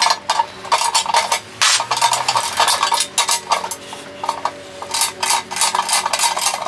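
A steel wrench tightening bolts on a steel motorcycle wheel chock, making runs of quick metallic clicks and clinks with short pauses between them.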